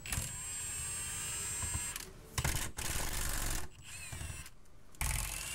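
Impact gun running in bursts, spinning out the T50 Torx bolts of the underbody steel plate; the first burst lasts about two seconds, a shorter one follows, and it starts up again near the end.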